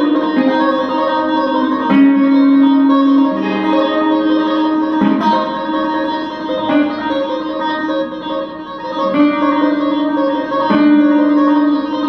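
Double-necked electric guitar played with both hands on the fretboard in a tapping style: clean, sustained ringing notes that change every second or two.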